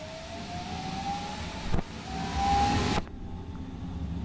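Alstom Citadis Spirit light rail train's electric traction drive whining, the whine rising in pitch as the train picks up speed, over a low rumble of the ride. About two seconds in, a knock starts a louder rush of noise that cuts off suddenly about a second later.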